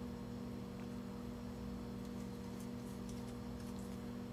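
Steady electrical mains hum, with a few faint light clicks from a plastic model-kit sprue being handled.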